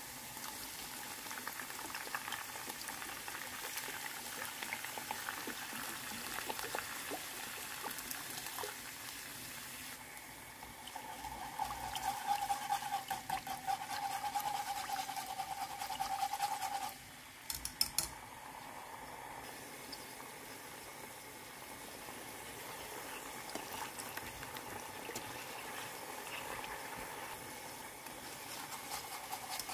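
Chopped aromatics sizzling in hot oil in a small pot. About a third of the way in, a dark sauce is in the pot and bubbling louder. Later the simmering sauce is stirred with a wire whisk, with a few sharp clicks a little past halfway.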